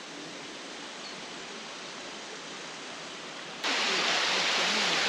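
Steady rushing of a waterfall, jumping abruptly louder about three and a half seconds in.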